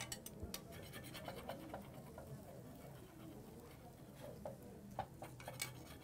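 Metal spoon scraping and tapping around the edge of a tortilla in a frying pan as it is shaped and sealed: a run of faint, quick scratches and clicks.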